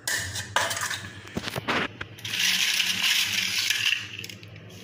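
Fried appalams (papads) being handled and laid on a steel plate: dry crisp crackling. A few sharp clicks come in the first two seconds, then a longer crackling rustle through the middle.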